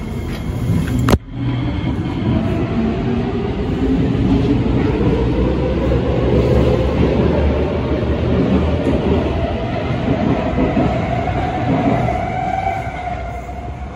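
Kawasaki & Nippon Sharyo C751B metro train pulling away from the station, its traction motors whining in a pitch that climbs steadily as it accelerates, over the low rumble of the wheels. A sharp click about a second in.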